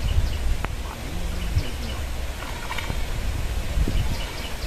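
Outdoor ambience with a steady low rumble, a short voice about a second in, and a few brief high bird chirps.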